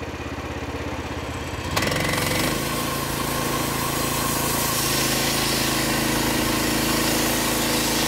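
Frontier OS27 portable bandsaw mill's 13-horsepower Briggs & Stratton engine idling, then throttling up suddenly a little under two seconds in as the blade engages. It then runs steadily at speed while the band blade is fed into the log, with a rising hiss of sawing.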